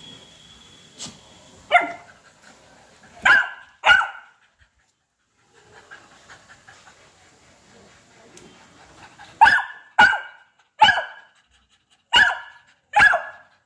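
Dog barking in short, sharp barks while playing: three barks, a pause of about five seconds, then five more in quick succession.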